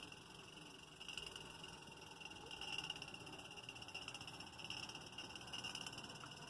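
Faint chorus of frogs calling, a steady high-pitched pulsing that swells and fades slightly.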